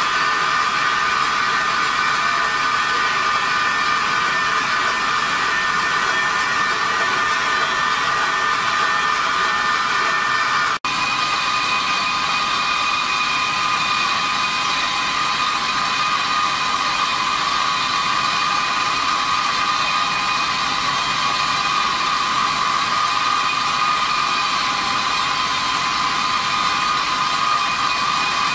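Diamond wire saw running dry, its wire cutting through a steel H-beam: a loud, steady whine over a grinding hiss. It drops out for an instant about eleven seconds in, and the whine comes back at a slightly different pitch.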